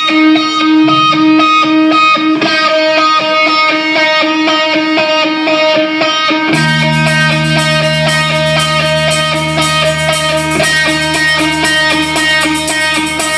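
Live band music: an electric guitar picks a repeating riff on its own, then bass guitar and drums come in about halfway through.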